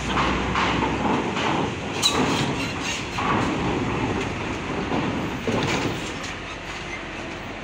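Loaded Hino trucks driving off a ferry over its steel ramp: diesel engines running and tyres clattering and clunking across the steel plates, with a sharp clank about two seconds in.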